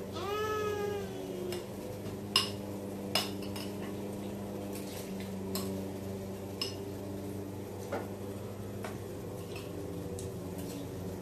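A spoon clinking and scraping against a plastic toddler's plate, in scattered single clinks, the sharpest two about two and three seconds in. At the start a toddler gives a short sung-out vocal sound that rises and falls in pitch.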